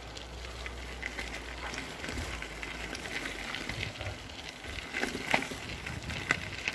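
Bicycle tyres rolling over a loose gravel road: a steady crunch of small stones with scattered clicks and rattles, over a low rumble.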